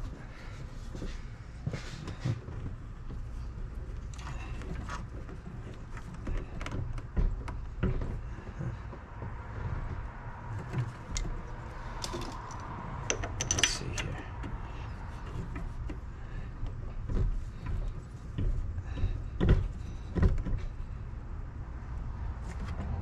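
Scattered metallic clicks and knocks of a breaker bar and transmission mount hardware shifting as the transmission is pried into line with its new mount, over a low steady hum.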